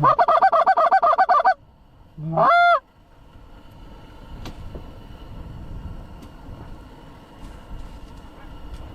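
Canada goose honks and clucks: a fast run of short clucks for about a second and a half, then a single rising honk, followed by quieter open-air background noise.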